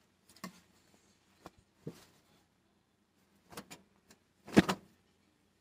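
Quiet, scattered clicks and light knocks of laundry being handled and folded, about five in all, the loudest about four and a half seconds in.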